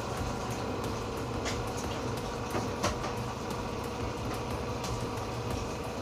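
LG front-loading washing machine on its spin program, the drum turning with a steady mechanical rumble and hum. A couple of light clicks come about one and a half and three seconds in.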